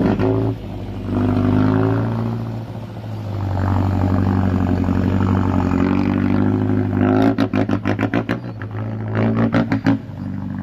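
Off-road 4x4 vehicle's engine running and revving under load, a steady low drone with rising and falling pitch. Twice in the second half it breaks into a rapid pulsing stutter.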